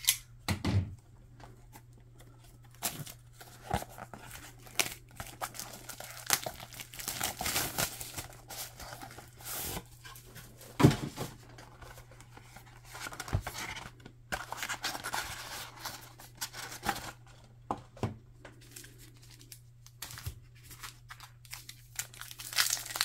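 Plastic wrap being torn off a trading-card hobby box, then the cardboard box opened and its foil packs handled: intermittent tearing, crinkling and rustling with scattered sharp clicks and taps.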